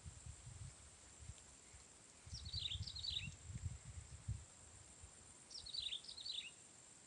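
A bird calls twice, each a quick run of falling chirps, over a steady high insect drone. Low rumbling and thumps, the loudest sound, come at the start and in the middle.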